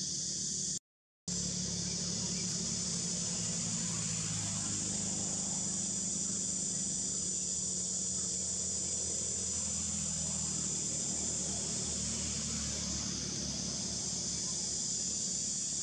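Steady, high-pitched insect chorus of forest cicadas or crickets, droning without a break except for a half-second dropout of all sound about a second in.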